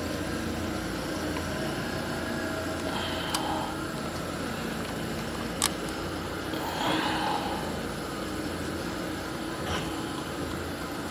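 Steady machinery hum in the background, with a few sharp metallic clicks of a spanner on the terminal screws and a brief rustle of cable as wires are fastened into an electric motor's terminal box.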